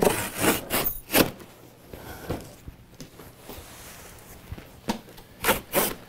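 Razor knife slicing through a corrugated cardboard carton, with a few quick scraping strokes at the start, softer scraping in the middle and another cluster of strokes near the end.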